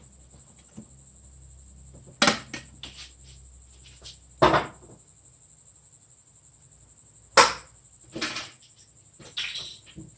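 Tools and parts being handled and set down during an oil change: about five separate knocks and clunks, a second or two apart.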